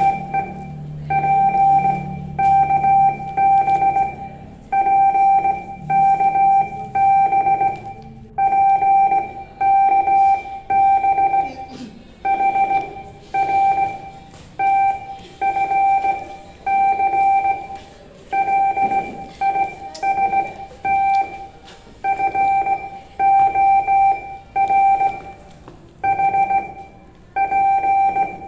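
Electronic Morse code tone keyed on and off: one steady high beep sent as short and long pulses, dots and dashes, in irregular groups with short gaps between them.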